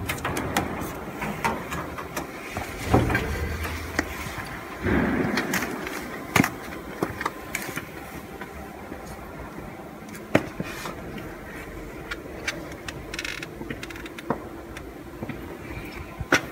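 Irregular knocks and clicks over a steady machine-shop background hum, with louder rustling handling noise about three seconds and five seconds in.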